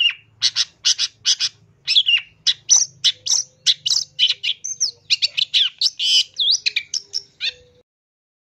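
Long-tailed shrike (pentet) calling in a fast run of sharp clipped notes mixed with short up-and-down whistled slurs, four or five a second. The calls cut off suddenly near the end.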